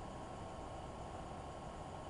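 Steady low hiss with a faint steady high tone, no distinct events: background noise of the recording.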